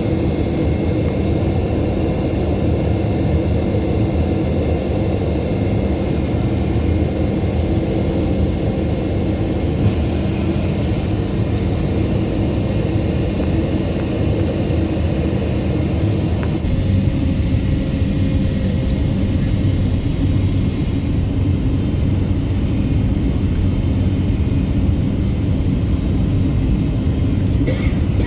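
Steady, even roar of a jet airliner heard from inside the passenger cabin: engine and airflow noise, mostly low, with faint steady whines on top.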